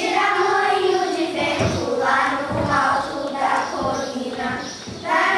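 Children's voices singing a song together, in held notes grouped into short phrases.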